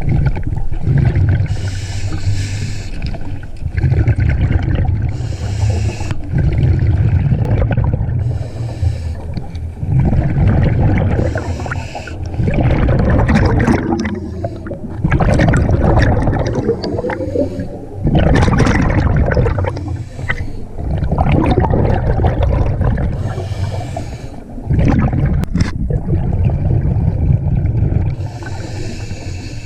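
Scuba diver breathing through a regulator underwater: a hiss with each inhale and a bubbling rumble with each exhale, repeating about every three seconds.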